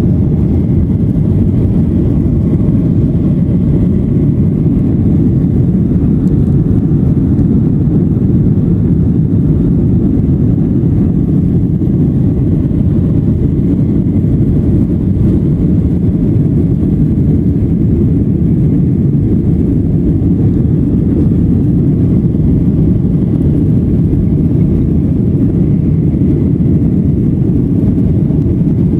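Cabin noise inside a Boeing 737-900 climbing just after takeoff: its CFM56 engines at climb power and the rushing airflow, a loud, steady low rumble with little high-pitched sound in it.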